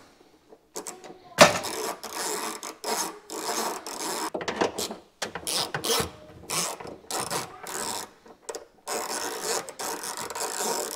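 Ratchet wrench clicking in a run of short rasping strokes, backing off the 3/8 nuts that hold trim to a car's trunk lid.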